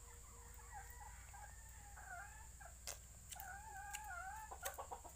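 A chicken clucking and trilling in faint, wavering calls, with a few sharp clicks near the end.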